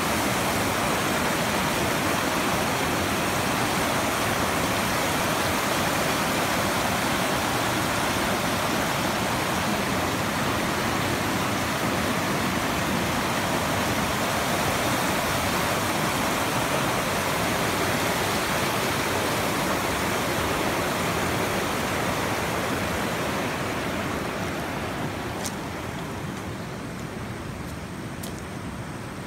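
Frio River rapids rushing over a rock ledge: a steady white-water rush that grows fainter over the last few seconds.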